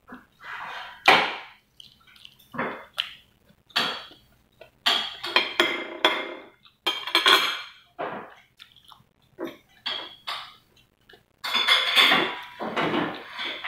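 Close-up eating sounds: chewing and smacking on a mouthful of vegetables and rice, mixed with a spoon scraping and clinking on a ceramic plate. The sounds come in short, irregular bursts, with a louder cluster near the end.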